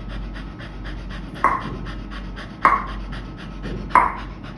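A dog panting rapidly and steadily, with three short, sharp, louder sounds at intervals of about a second and a quarter.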